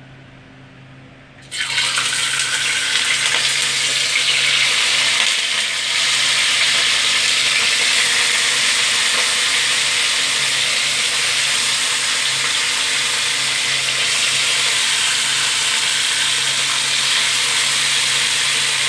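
Whole threadfin fish frying in hot oil in a wok: a loud, steady sizzle that starts suddenly about one and a half seconds in as the fish go into the oil.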